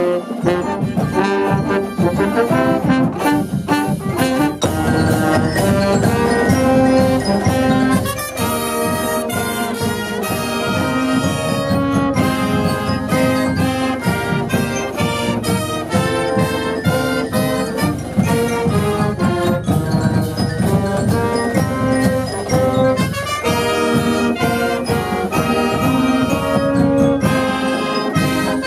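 Pep band playing loudly, sousaphones and other brass carrying the tune over a steady, even beat of strikes.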